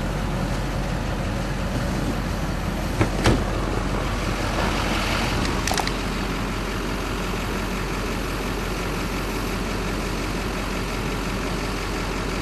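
Vehicle engine running steadily, with a pair of sharp knocks about three seconds in and a fainter one near six seconds.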